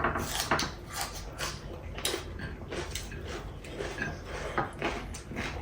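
Close-up eating sounds of chicken biryani being eaten by hand: a string of small clicks and smacks from chewing and from fingers working the rice, about one or two a second.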